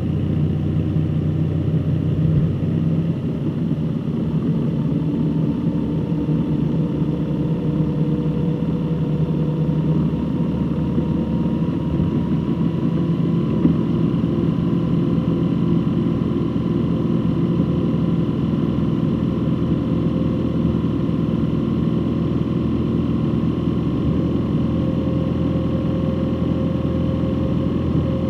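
Motor vehicle driving at a steady pace: continuous engine hum and road noise, the engine's pitch drifting slowly up and down.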